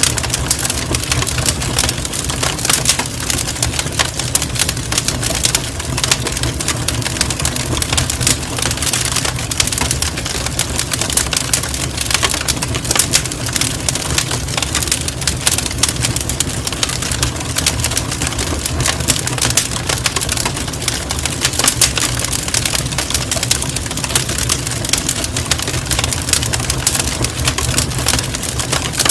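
Campfire burning, wood crackling and popping in dense, irregular snaps over a steady low rumble.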